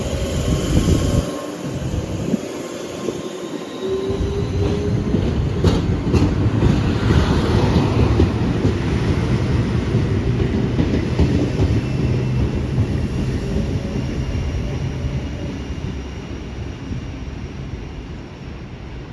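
K-set double-deck electric train pulling out and running past, a steady low rumble with a faint whine over it. A few sharp wheel clicks over rail joints come about six seconds in, and the sound fades near the end as the train moves away.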